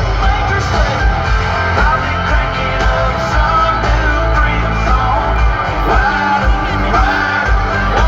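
Live band music at a concert, loud and steady with a pulsing bass beat and a singer's voice over it.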